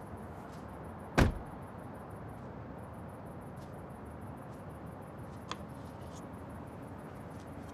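A car door shutting with a single solid thud about a second in, then a faint click later, over a low steady background hiss.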